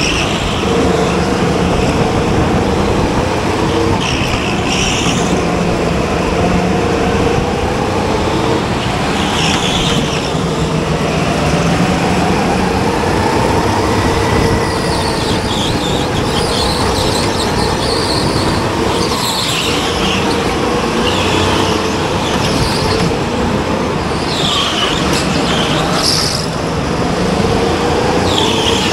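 Racing kart's motor running at racing speed, its note rising and falling slightly through the corners, with short higher-pitched hissing bursts every few seconds.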